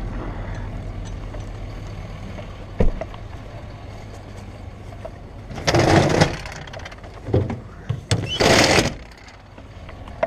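Brush truck engine idling low and steady, easing off slightly, with a sharp click about three seconds in and two loud half-second bursts of noise around six and eight and a half seconds in.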